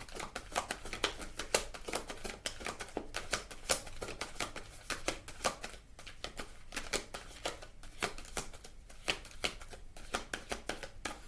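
Oracle cards being shuffled by hand: a dense run of quick papery clicks and flutters, a little sparser in the second half.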